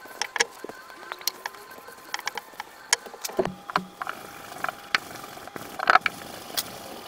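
Steel wool and a cloth rubbing over a steel axe head on a wooden bench, working in cold gun blue: irregular scratchy strokes and small clicks, with a louder scrape about six seconds in.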